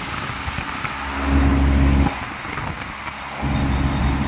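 Koppel air-conditioner outdoor unit running, its condenser fan blowing air steadily. A deep electrical hum comes in about a second in, cuts out abruptly after about a second, and comes back near the end.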